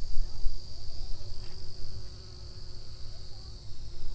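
Summer insects keep up a steady high-pitched shrilling drone. Underneath runs an uneven low rumble.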